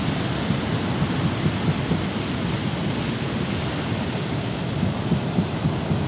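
Heavy surf breaking and washing up the shore, a steady rushing noise, with wind rumbling on the microphone.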